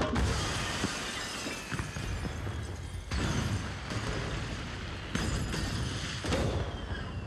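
Explosion of a glass dome: a sudden blast with shattering glass, then continuous fire and debris noise with further blasts about three, five and six seconds in.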